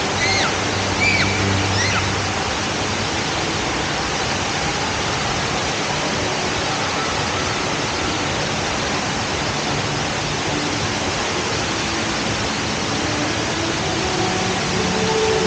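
Steady rushing roar of water pouring down the large man-made indoor waterfall at Jewel Changi Airport. A few high chirps sound in the first two seconds.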